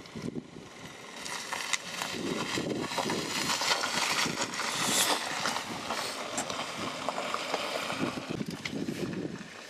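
Silver Ford Focus hatchback driving slowly past close by, its tyres rolling over a gravel surface with many small clicks of stones. The noise swells as the car nears, is loudest about halfway through, and fades as it moves away.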